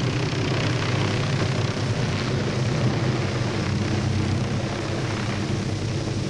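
Hughes 500C helicopter hovering and manoeuvring low, its turbine and rotor making a steady, unbroken drone.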